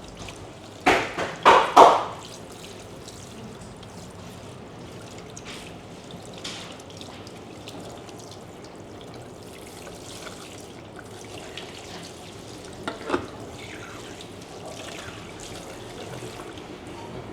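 Water running steadily from a tap into a sink, with a quick cluster of four louder splashes or knocks about a second in and one more short one near the middle.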